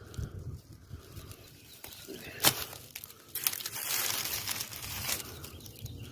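Loose rock crunching and scraping, with one sharp knock of stone on stone about two and a half seconds in, then a longer stretch of gritty crunching.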